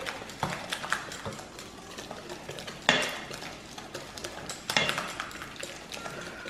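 A utensil stirring thick yogurt-and-spice tandoori marinade in a stainless steel bowl, scraping and knocking against the metal in irregular strokes. The loudest knocks come about three seconds in and just before five seconds.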